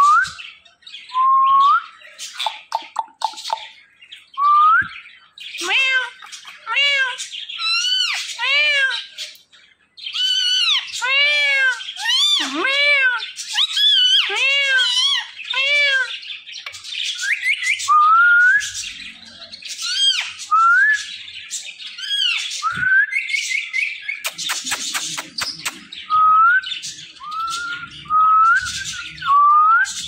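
Indian ringneck parakeet calling: a long run of rising whistles and chirps, with quick strings of arched chirps in the middle and a harsh screech about 25 seconds in.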